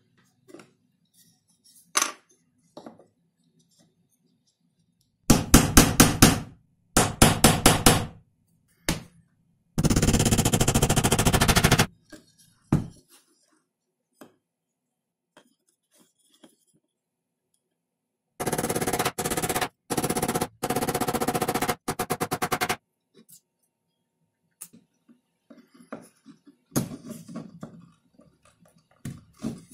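Repeated bursts of rapid mechanical rattling, each lasting a second or two and several times over, with a few soft knocks between them.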